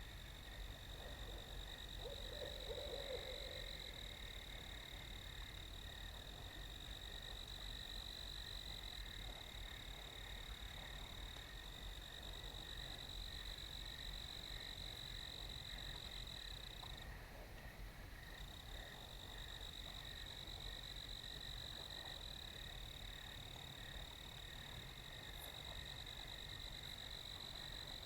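Night meadow chorus of calling animals. A steady high-pitched trill drops out for about a second partway through, over a softer pulsing lower chorus. A brief lower call comes about two seconds in.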